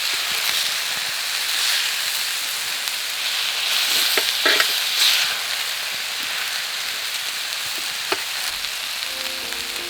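Yakisoba frying on an iron griddle over a campfire: a steady sizzle, with a few sharp clicks of a cooking utensil working the noodles about halfway through and again near the end.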